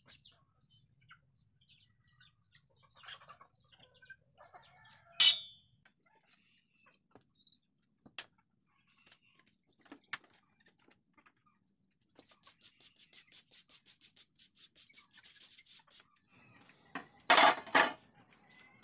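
Chickens and a rooster in the background, with scattered knocks and one sharp, ringing clank as the steel chainsaw guide bar is handled. A fast, high chirring runs for about four seconds past the middle, and a loud call near the end.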